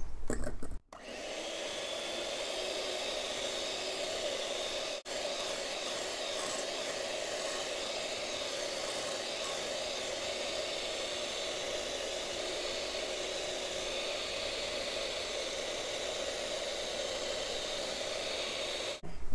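Electric hand mixer running steadily, its beaters whipping strawberry pulp into whipped heavy cream; the even whir starts about a second in, with a momentary break about five seconds in.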